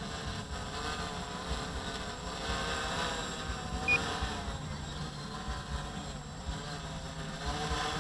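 F450 quadcopter's motors and propellers humming overhead, their pitch wavering up and down as the motor speeds shift, over a low uneven rumble. A short high blip sounds about four seconds in.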